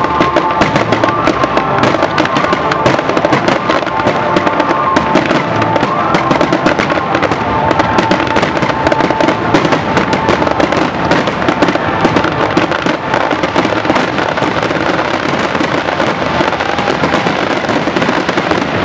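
Aerial fireworks: a rapid, continuous barrage of shell bursts and crackle with no break.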